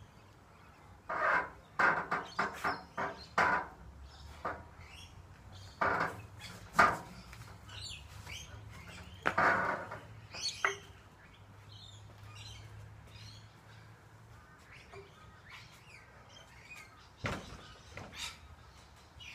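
Birds chirping now and then, mixed with irregular louder short sounds that come in clusters.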